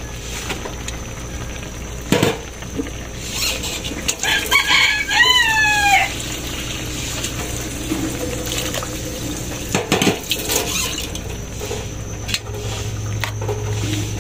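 A rooster crows once, about four seconds in: a few short notes, then a longer note that falls away. A couple of sharp knocks come before and after it.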